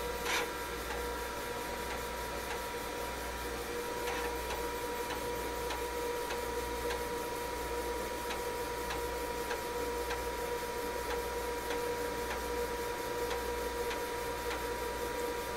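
A 5.25-inch 360K floppy drive in an IBM PC XT clone reading the FORMAT program from disk: the drive spins with soft, regular ticks from the head. Under it runs the computer's steady whine and fan hum.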